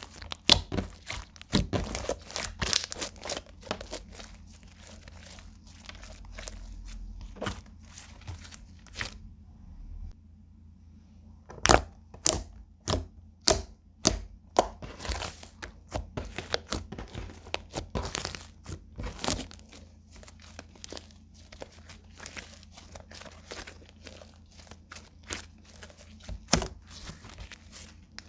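Clear slime being kneaded and stretched by hand as eyeshadow is mixed in, giving irregular sticky pops and crackles, with a short pause about ten seconds in.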